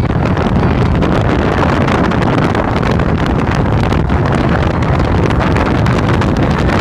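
Loud, steady wind rushing over the phone's microphone through an open car window, with a low rumble underneath.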